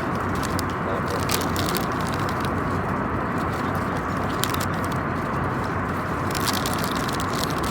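Steady cabin noise of a jet airliner in flight, an even rushing hum, with scattered light crackles close by.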